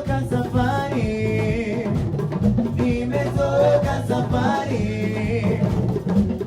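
A band playing a song live at a sound check, with a singer over drums and other instruments.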